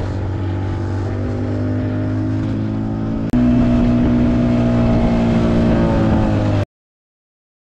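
A small open fishing boat's motor running steadily under way, with hull and water noise. It jumps louder about three seconds in, its pitch sags slightly, and it cuts off abruptly near the end.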